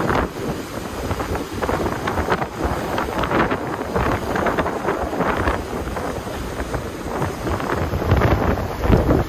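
Strong wind gusting across the microphone, over the wash of rough surf breaking against a rock jetty.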